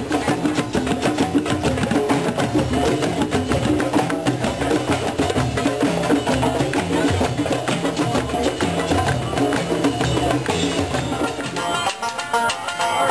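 Music with busy, quick percussion over pitched instruments; near the end it gives way to music of plucked strings.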